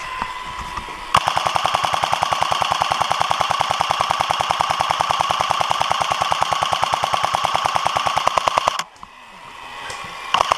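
Airsoft A&K M249 support gun firing full-auto: one long, steady burst of rapid, evenly spaced shots lasting about seven and a half seconds, then a short burst starting just before the end.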